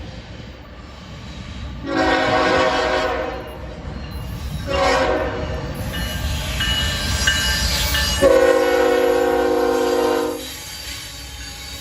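Diesel locomotive's multi-chime air horn sounding three blasts, a medium one, a short one and a long, loudest one near the end, over the low rumble of a passing train.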